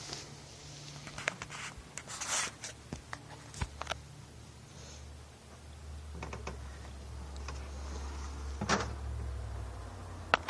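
Scattered clicks, taps and rustles of things being handled, over a low steady hum that comes in about four seconds in.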